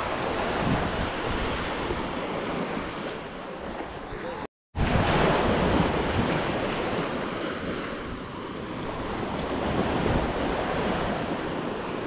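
Surf washing onto a sandy beach, a steady swelling rush, with wind buffeting the microphone. The sound cuts out completely for a moment about four and a half seconds in.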